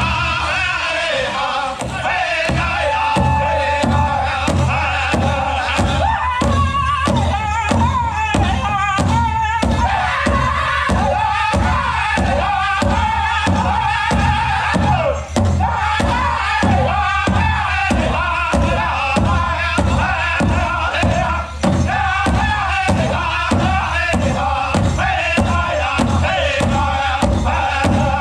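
Powwow drum group singing a chicken dance contest song: several men singing high-pitched in unison over a large shared bass drum, struck together about twice a second.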